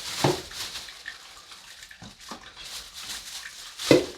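Old toilet parts handled and thrown into a trash can: a few knocks and clatters, the loudest near the end, over a rustling hiss.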